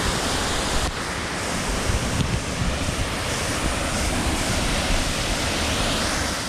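Steady rush of falling water from a small creek waterfall, close to the microphone.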